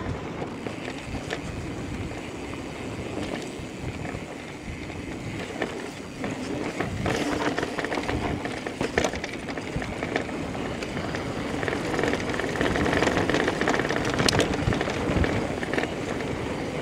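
Electric mountain bike rolling along a dirt singletrack: steady tyre noise on dirt and pine needles with frequent small rattles and knocks from the bike over bumps. A faint steady motor whine comes in during the second half.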